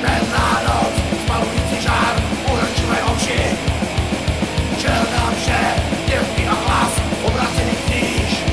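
Black metal song: fast, steady kick-drum pulse under distorted guitars, with harsh shouted vocals.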